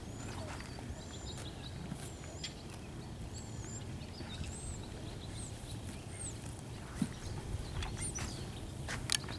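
Small birds chirping, short high whistled notes that rise and fall, repeating every second or so over a steady low rumble, with a few sharp clicks near the end.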